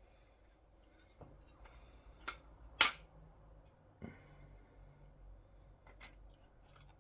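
Scattered clicks and knocks of 3D-printed parts and a rod being handled, as the rod is fed through the side holes of a printed bar end. The loudest is one sharp click about three seconds in.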